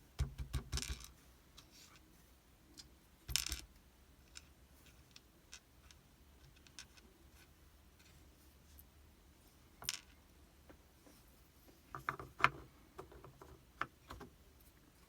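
Small metal lock parts being handled: scattered clicks, taps and short rattles of a challenge lock and its tools or pins, in a few bursts with a dense cluster near the end.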